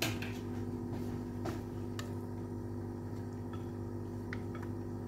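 A spoon stirring yogurt thinned with water in a glass bowl: soft, wet squishing with a few faint taps of the spoon against the glass, over a steady low hum.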